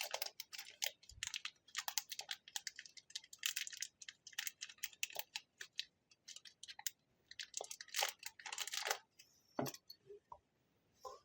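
Small electronic parts being handled on a workbench: bursts of quick light clicks and crinkling, coming and going in clusters, as the battery holder is fitted onto the circuit board.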